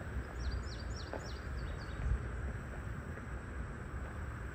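A small bird gives a quick series of about eight short, down-slurred chirps in the first two seconds. Under it runs a steady low rumble.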